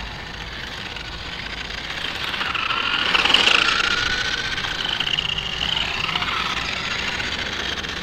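Remote-control Scion FR-S toy car driving, its electric motor and gears whining and gliding up and down in pitch with the throttle, loudest about three to four seconds in.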